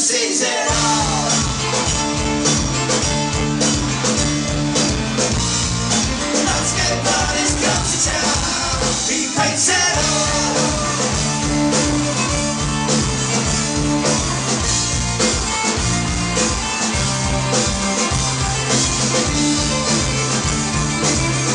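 Folk-punk band playing live through a club PA: drums, bass, guitars and fiddle over a steady rock beat. Bass and drums drop out briefly twice, at the start and about nine seconds in.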